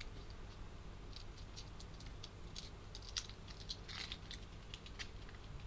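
Faint crinkling and light crackles of a foil wrapper being handled and peeled off a small half pan of paint, in scattered short bursts.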